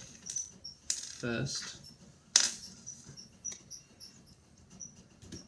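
Light clicks and one sharp metallic clink of small metal hardware, a flat washer being handled and fitted onto a bolt, with a scatter of faint ticks after it.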